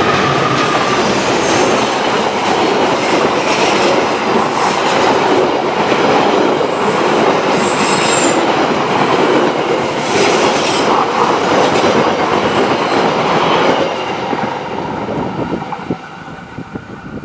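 CC 206 diesel-electric locomotive and its passenger carriages passing close at speed: a dense, loud rumble and clatter of wheels over the rails, with a brief high wheel squeal about eight seconds in. The noise drops away about fourteen seconds in as the last carriage goes by.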